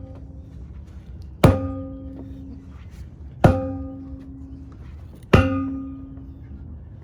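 A heavy manual post driver made of 8-inch steel pipe, about 75 to 80 pounds, dropped onto a dock piling three times, about two seconds apart. Each strike is a sharp metallic clank followed by a ringing tone that fades over about a second. The blows drive the storm-lifted piling back down, a little at a time, to level the dock.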